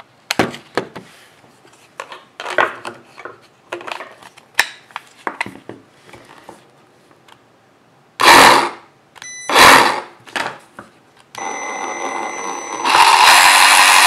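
Milwaukee M12 Hackzall cordless reciprocating saw: clicks and knocks as it is handled and its battery is fitted, then two short bursts as the trigger is blipped, then the motor running steadily, louder and at full speed for about the last second. It runs on its newly replaced trigger switch and PCB, so the repair has cured its failure to start.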